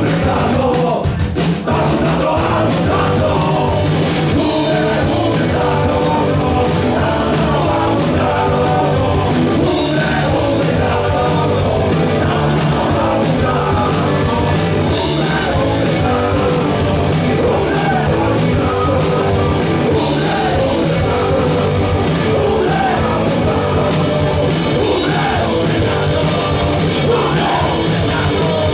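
Live rock band playing loud with distorted electric guitars, bass guitar and drum kit, and a singer shouting the vocals.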